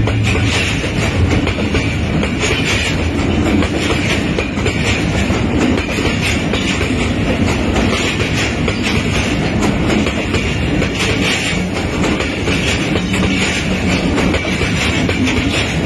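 Passenger train rolling past, its coach wheels clattering on the track over a steady low rumble.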